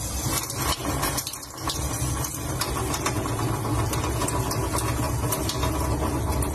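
Kitchen tap running a thin stream into a stainless steel sink: a steady splashing hiss over a low rumble, with scattered small clicks.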